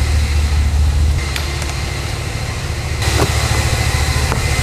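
Car engine idling with a steady low rumble, with a few light clicks over it.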